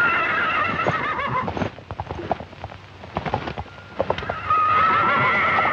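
A stallion rearing and neighing: a long, wavering whinny at the start, then a run of hoof thuds and stamps, then a second long whinny near the end.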